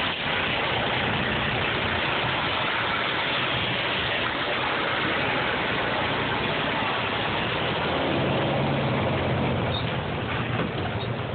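Semi-truck diesel engine running close by: steady engine noise with a hiss over it, the low hum growing stronger about eight seconds in.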